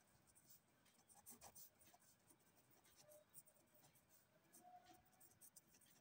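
Faint scratching of a pen writing on notebook paper, in short uneven strokes.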